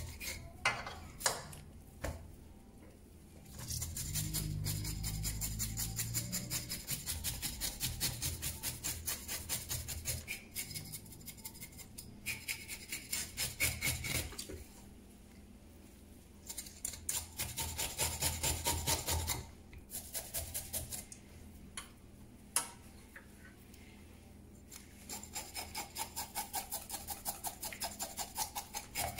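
Scales being scraped off a whole grouper with a blade: runs of fast scraping strokes, about four a second, broken by short pauses.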